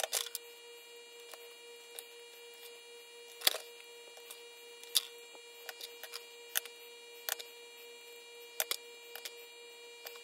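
Small metal pneumatic-drill parts clinking as they are set one at a time into a metal parts tray: about a dozen sharp clicks at irregular intervals, over a faint steady hum.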